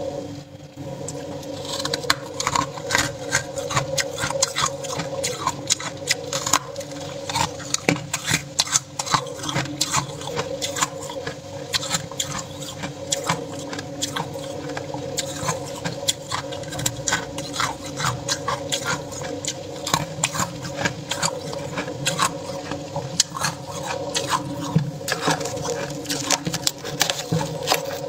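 Freezer frost crunching and crackling in quick, irregular bursts as chunks are broken off and bitten, over a steady low hum.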